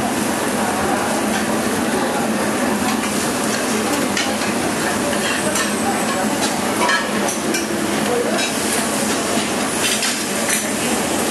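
Salmon and beef sizzling steadily on a flat steel teppanyaki griddle, with a few light metallic clinks now and then.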